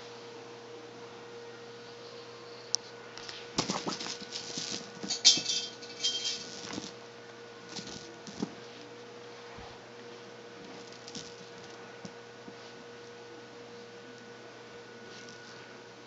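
A cat toy clattering and rattling on a tile floor as a cat plays with it: a lone click, then a flurry of quick clicks and rattles for a few seconds, loudest about five seconds in, with a few faint ticks after. A faint steady electrical hum lies underneath.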